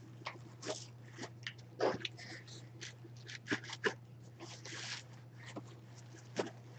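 Fabric and packaging being handled: a football jersey rustling and crinkling as it is spread out in its box, with scattered light clicks and scrapes. A steady low hum runs underneath.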